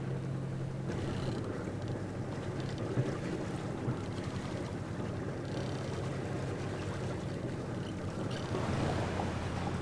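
Sailboat under way: a steady low drone from its inboard engine, with wind buffeting the microphone and water rushing past the hull.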